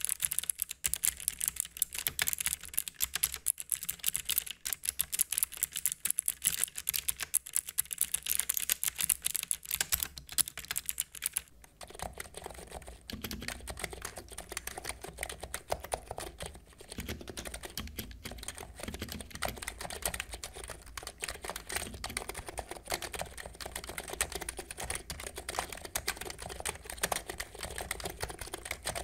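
Rapid, continuous typing on computer keyboards. For about the first twelve seconds it is a full-size keyboard with a bright, sharp clatter. Then it is the Cox Endeavour tenkeyless, an electrostatic capacitive (non-contact) keyboard with PBT keycaps, giving a lower, fuller key sound.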